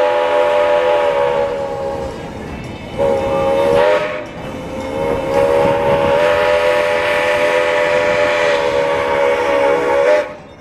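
Steam locomotive whistle blowing the grade-crossing signal. A long blast ends about two seconds in, a short blast follows about a second later, and a final long blast cuts off just before the end.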